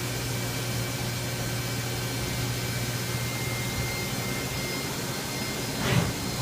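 Niigata SPN50 CNC horizontal machining center running under power: a steady machine hum with a low steady tone, and a short louder noise near the end.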